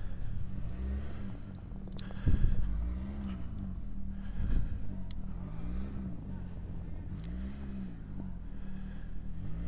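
A car stuck in deep snow, its engine revving up and falling back over and over, roughly every second and a half, as its wheels spin without getting grip. Two low thumps cut in about two and four and a half seconds in.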